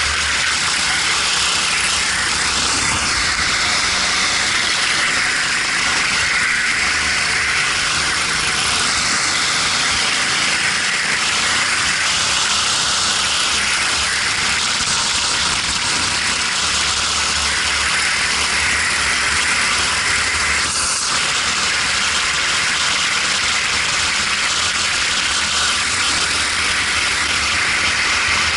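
Racing kart engine running at speed, heard through a helmet-mounted camera under a loud, steady hiss of wind noise.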